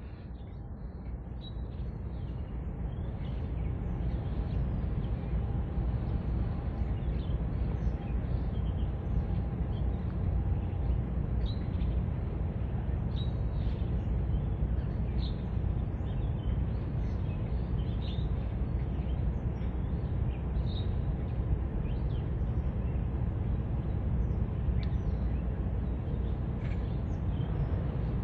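Small birds chirping in short, scattered calls over a steady low rumble that swells during the first few seconds and then holds.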